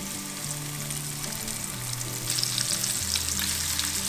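Seasoned sheepshead fillets frying in hot butter and olive oil: a steady sizzle that grows louder a little past two seconds in as more fillets go into the pan.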